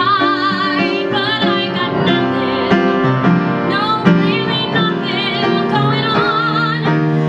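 A woman singing a musical-theatre song with a wide vibrato, accompanied by piano chords.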